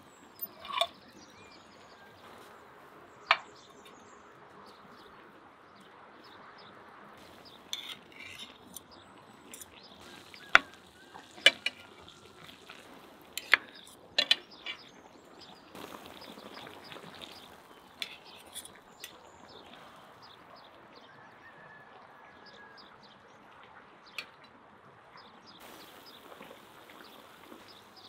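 Metal spoon and fork clinking and tapping against a ceramic platter as stuffed cabbage rolls are set onto it: scattered sharp clinks, several close together in the middle, over faint outdoor background.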